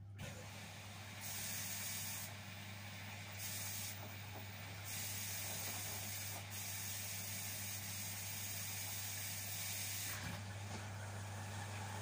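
LG front-loading washing machine filling: just after the start its water inlet opens and water hisses and sprays into the drum, getting louder and softer several times and easing near the end. A steady low hum runs underneath.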